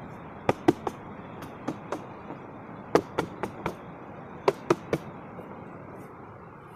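Foam yoga mat being shaken out, flapping with sharp snaps in four quick groups of three or four, over a steady rushing background.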